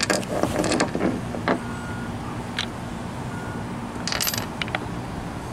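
Short clicks and knocks of a skateboard truck's metal hanger and parts being handled, a cluster in the first second and single ones later, over a steady low hum.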